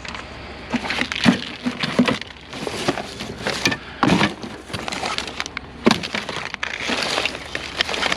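Rummaging by hand through a curbside junk pile: irregular clattering, crinkling and knocking of handled items and bags.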